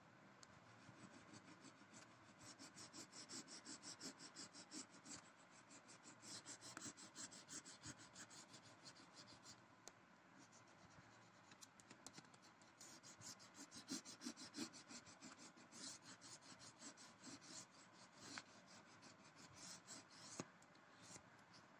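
Faint scratching of a black wax crayon rubbed back and forth on paper in quick, closely spaced strokes, shading heavily over a brown layer; the strokes pause briefly about halfway through.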